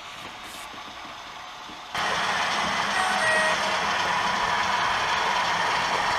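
OO gauge model train running on the layout with a steady rushing mechanical noise, which gets much louder suddenly about two seconds in.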